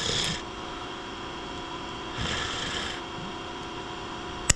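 Locking pliers' jaws scraping and slipping on a snapped M8 bolt stub as it is twisted, in two rasping bursts; the bolt does not turn, with too little of the stub standing proud for the jaws to bite. A sharp click near the end as the pliers are released.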